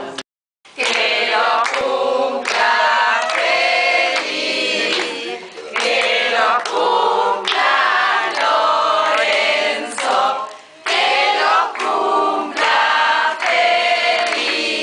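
A group of people singing a birthday song together in phrases, with short breaks between lines. The sound cuts out completely for about half a second just after the start.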